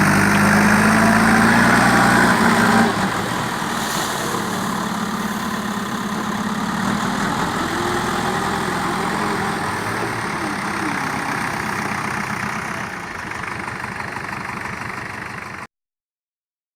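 JCB 3DX backhoe loader's four-cylinder diesel engine running, held at higher revs for the first few seconds, then settling to a steadier, lower speed. The sound cuts off abruptly near the end.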